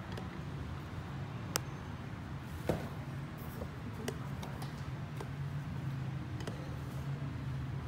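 Wire balloon whisk beating a runny batter in a bowl: soft stirring with irregular clicks as the wires knock the bowl's side, the loudest a little over a second in and again near three seconds, over a steady low hum.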